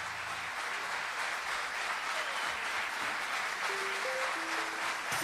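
Concert audience applauding, fading in at the start. About two-thirds of the way in, a few short held notes from an instrument on stage sound over the clapping.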